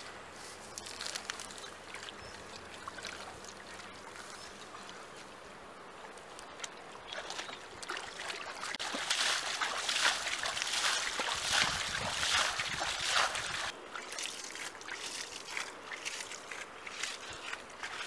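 Shallow paddy-field water sloshing and splashing in irregular bursts as someone works through it by hand to catch fish. The splashing grows busier and louder from about eight seconds in and eases off again about five seconds later.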